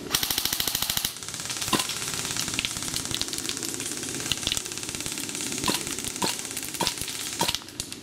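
Airsoft gun firing a rapid full-auto burst of about a second. A steady crackle follows, with a few single sharp clicks scattered through it.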